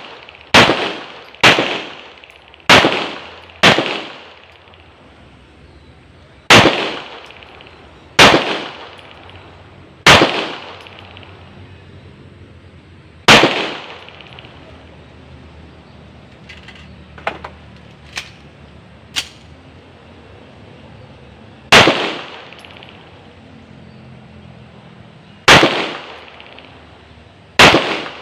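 A string of about eleven single handgun shots with a short echoing tail after each. Four come about a second apart at the start, the rest are spread several seconds apart, and three much fainter sharp cracks fall in the lull near the middle.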